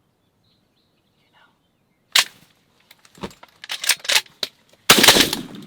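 Shotgun fire at turkeys: a sharp shot about two seconds in, a scatter of knocks and rustling, then a louder, longer blast about five seconds in.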